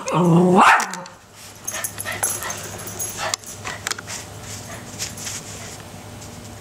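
A Yorkshire terrier puppy gives one short, loud yelp-like bark that jumps up in pitch at its end. Light scattered rustling and clicks follow as the puppies play with a rubber-and-rope chew toy on a puppy pad.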